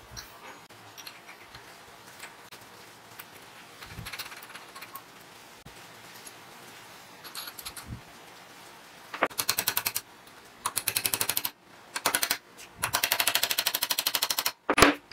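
Bicycle freewheel ratchet clicking rapidly, about a dozen clicks a second, in several short runs starting about nine seconds in, as the freewheel is turned on its body. A single louder metal knock comes near the end.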